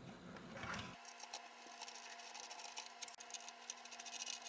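Small screws being turned in with a hand screwdriver on a monitor's metal chassis: faint scratchy ticking in short runs, starting about a second in.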